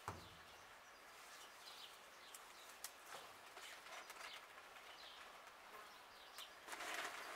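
Faint outdoor ambience with scattered small bird chirps. There is a sharp click at the very start and a brief louder burst of noise near the end.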